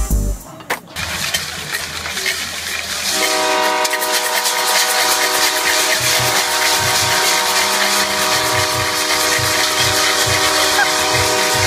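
Stadium crowd cheering. About three seconds in, a marching band's brass comes in holding one long chord over thumping drums.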